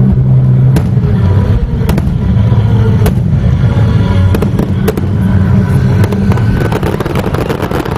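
Aerial fireworks shells bursting: scattered single bangs, then a fast run of crackles near the end, with music playing underneath.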